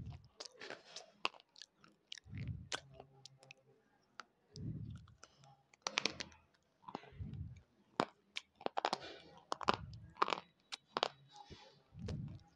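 Thick wet slate pencil being bitten and chewed right at a clip-on microphone: dense, sharp, gritty crunches and crackles, several a second, broken by a few dull low thuds.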